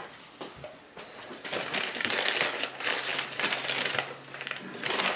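Takeout food packaging (paper or plastic wrappers) being handled and crumpled, a dense run of crinkling crackles starting about a second and a half in.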